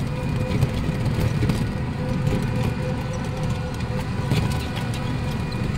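Electric tricycle (e-bike) riding along a paved road: a steady motor whine over a constant low rumble of tyres and wind.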